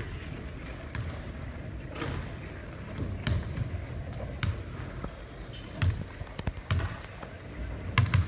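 Basketballs bouncing on a hardwood gym floor: irregular thuds about once a second, with a sharper hit near the end.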